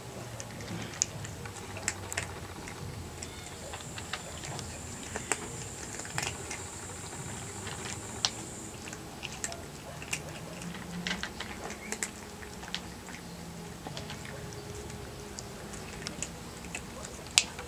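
Cats eating from a shared bowl: irregular small clicks and crunches of chewing and licking, with one sharper click near the end.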